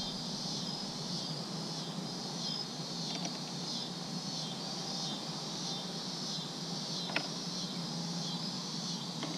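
Insects chirping steadily in a high, repeating pulse, over a low steady hum, with one sharp click about seven seconds in.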